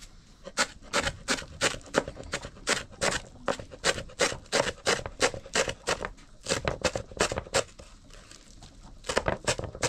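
A quick, regular series of light knocks, about three a second, breaking off for about a second near the end before starting again.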